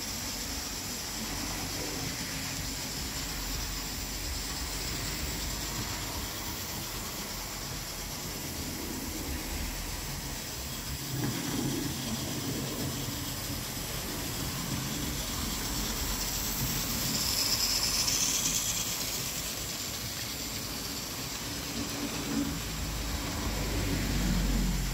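Model train locomotives running round the layout: a steady whirr and hiss of their small electric motors and wheels on the rails, swelling louder a few times as a train passes close.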